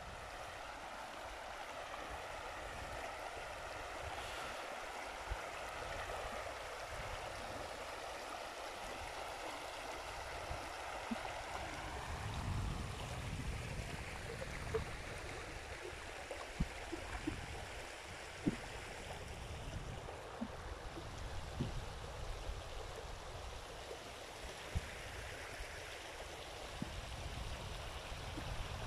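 Shallow stream running over a stony bed, a steady rush of water. A low rumble and a few small knocks join it in the second half.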